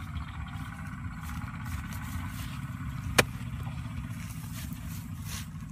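A hoe chopping into hard, dry soil: two sharp strikes, one about three seconds in and one at the very end, over a steady low rumble.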